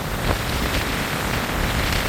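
Storm-force wind blowing hard: a steady rushing noise with gusts buffeting the microphone in a rumble.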